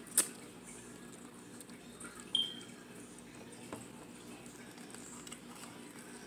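Faint sounds of eating steak by hand: a sharp mouth click just after the start, a brief high chirp about two seconds in, then quiet handling of the meat.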